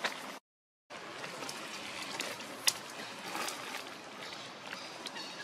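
Steady outdoor background hiss with scattered light clicks and crackles, typical of a small animal shifting on dry leaf litter. The sound cuts out completely for about half a second near the start.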